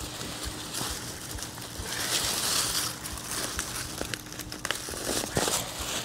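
Potato foliage rustling and crinkling as the plants are grabbed and pulled, with a few sharp snaps or clicks near the end.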